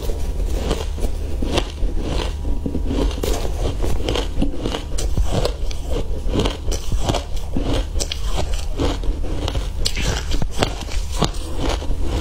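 Ice chunks dusted with matcha powder being bitten and crunched between the teeth, close to a clip-on microphone: a dense, irregular run of sharp crunches and cracks with chewing.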